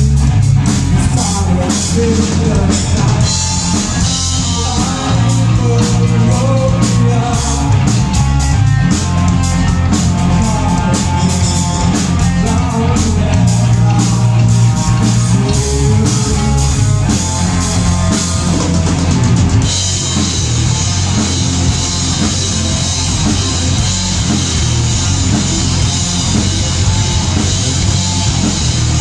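Metal band playing live: distorted guitars and bass under fast drumming, with a vocalist singing into a handheld mic. About two-thirds of the way through, the separate drum hits give way to a steady wash of cymbals.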